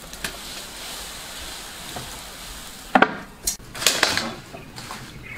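Steady hiss of water boiling in a wok set up for steaming as a plate is lowered onto the rack, then several sharp clatters of wood and crockery about three seconds in.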